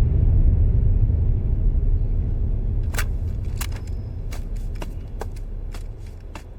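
The deep rumble of a large explosion dying slowly away, with scattered sharp crackles and clicks of debris starting about three seconds in.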